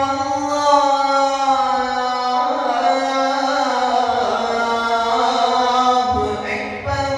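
Young male voice reciting the ezan, the Islamic call to prayer, in an ornamented Uşşak maqam with Saba passages, holding one long melismatic line into a handheld microphone. The line breaks off about six seconds in.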